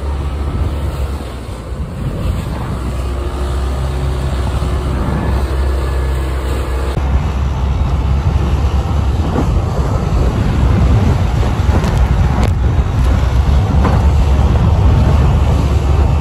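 Outboard motor running under way on a small boat crossing rough chop, with water splashing against the hull and wind buffeting the microphone.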